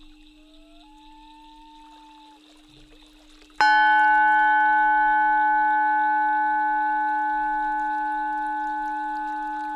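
Tibetan singing bowl struck once about three and a half seconds in, then ringing on with a slowly fading tone, its main note near 852 Hz. Under it runs a steady low drone, with faint sliding tones before the strike.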